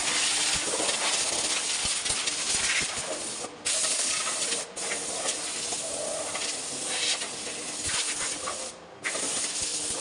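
Loud, steady hissing, like a jet of air or spray. It breaks off briefly three times, about three and a half, four and a half and nine seconds in, and stops at the end.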